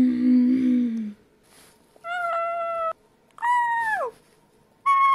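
A person's voice making a low drawn-out monster noise, then three short high squeaky cries, the last two sliding down in pitch.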